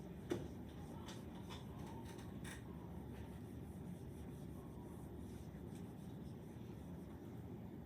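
Faint scratching of writing on paper, with a few light ticks, over a steady low room hum; one sharper tick about a third of a second in.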